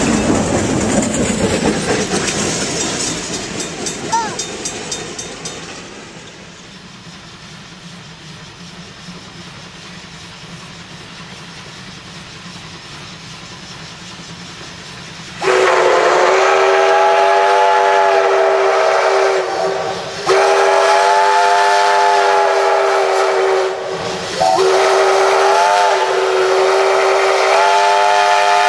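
Passenger coaches rolling past with wheel clatter, fading away over the first few seconds. About halfway through, a small steam locomotive's chime whistle, on the 1912 Heisler geared locomotive, blows three long blasts with short breaks between them. The last blast is still sounding at the end.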